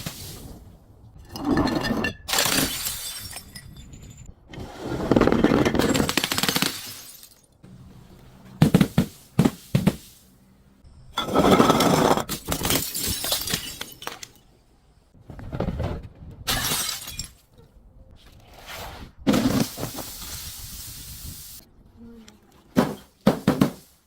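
Glass bottles being broken and crushed: about seven separate bouts of crunching and shattering, each a second or two long, with short pauses between.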